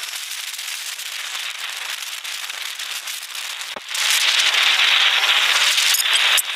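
Crackling hiss of wind and road noise on the microphone of a camera carried on a moving motorbike, with no clear engine note; it jumps louder about four seconds in.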